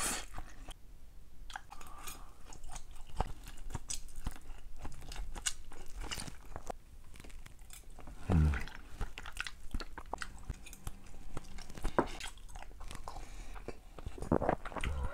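Close-up mouth sounds of eating rice vermicelli noodles in chicken curry: a slurp of noodles at the start, then chewing with many small wet clicks. A short low hum about eight seconds in and again near the end.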